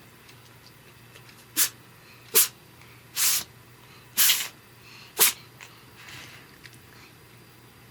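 Cat sneezing five times in a row, short sharp sneezes about a second apart, the third and fourth a little longer.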